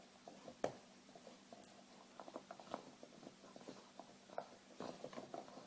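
A dog gnawing and pawing at a bone: small irregular clicks and taps, with one sharper click a little after the start.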